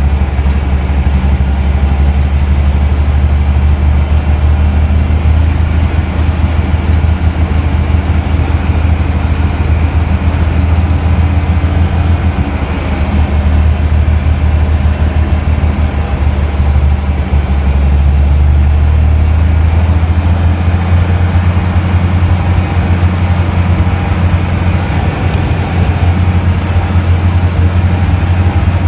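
A vehicle engine running steadily with a deep, low drone. It eases off briefly about twelve seconds in and picks up again about two-thirds of the way through.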